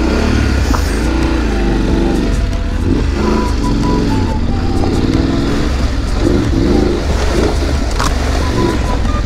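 BMW F850GS parallel-twin motorcycle engine being ridden over a dirt track, its revs rising and falling about once a second as the throttle is worked.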